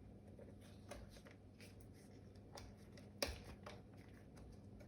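Faint handling noise: a few light clicks and taps, the sharpest a little after three seconds in, as a strap is worked onto a plastic toe hook of the foot bed.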